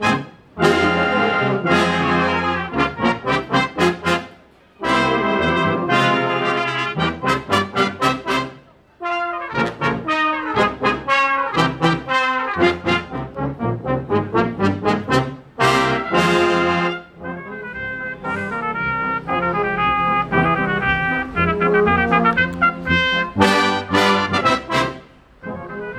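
Brass band playing a march in short, punchy rhythmic phrases, with brief breaks between phrases.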